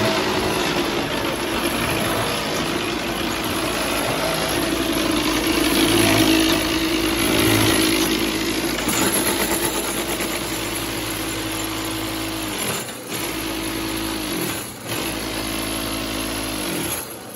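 Concrete block-making machine and its feed conveyor running, a loud, steady mechanical hum and clatter. Near the end it cuts out briefly three times, the hum sagging in pitch each time before the machine picks up again.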